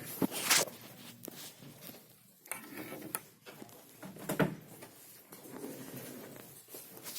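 Handling noises from unboxing a wristwatch: scattered light clicks and knocks with a few short rustles, the loudest about half a second in and again a little after four seconds.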